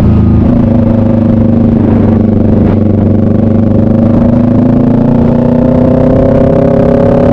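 Motorcycle engine heard on board under load, its pitch rising slowly and steadily as the bike accelerates.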